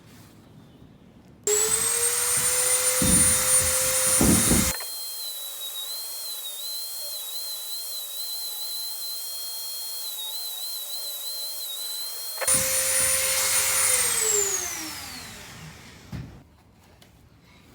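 Dremel rotary tool switched on and running at a steady high-pitched whine as it grinds a high spot off a deer-antler ring, then switched off and spinning down with a falling pitch near the end. For several seconds in the middle the sound thins to a hiss with a wavering high tone.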